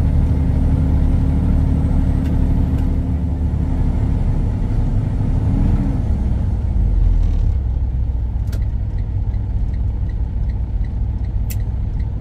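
Freightliner Cascadia semi-truck's diesel engine running, heard from inside the cab as a steady low rumble; about six seconds in the engine note drops and settles lower. A few sharp clicks come in the last few seconds.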